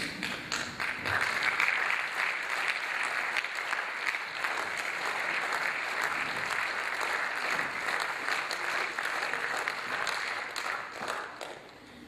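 Audience applauding in a theatre, a dense steady clapping that dies away just before the end.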